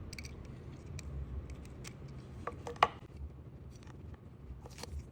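Small scattered clicks and taps of hands and tools working on a diecast model car and its tiny wheels, with one sharper click about three seconds in, over a faint low hum.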